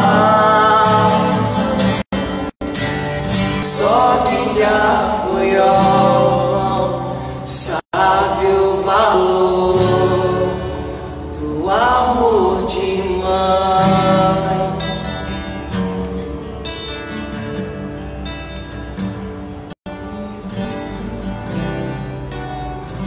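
Voices singing a devotional hymn to strummed acoustic guitar, the sound cutting out for an instant a few times; the singing grows quieter in the second half.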